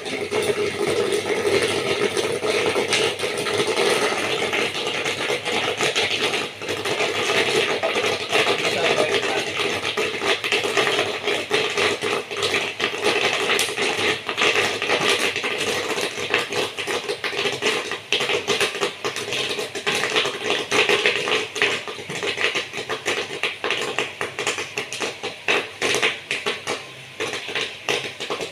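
Corn kernels popping in the kettle of a small 12-volt popcorn machine, a dense crackle of pops over a steady hum. In the last several seconds the pops grow sparser and more distinct.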